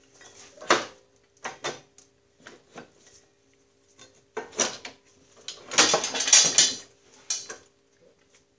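Metal parts of a Snapper rear-engine rider's drive assembly (hexagon shaft, thrust washers, friction disc) clinking and knocking as they are worked into place by hand. A few light knocks come first, then a louder metallic rattle lasting about a second past the middle.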